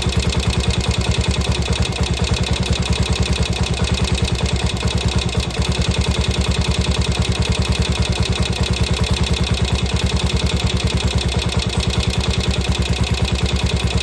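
Ducati bevel-drive engine idling steadily with an even, regular pulse.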